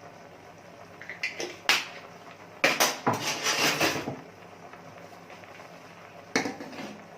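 Kitchen utensils and a cooking pan clattering: a few light knocks, then a longer stretch of clattering and scraping about three seconds in, and one more knock near the end.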